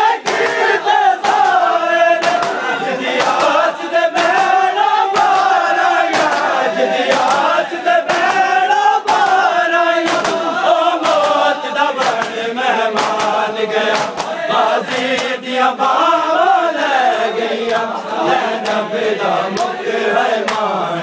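A crowd of men chanting a mourning noha in unison while beating their bare chests with their hands (matam). The slaps land as sharp claps about once or twice a second, in time with the chant.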